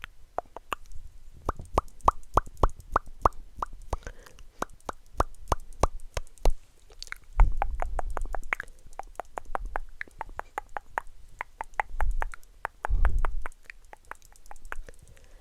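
Close-miked ASMR mouth sounds: rapid wet clicks and pops of tongue and lips, several a second, with a run of hollow pitched pops in the first few seconds. Two low rumbling swells, about seven and thirteen seconds in, are the loudest moments.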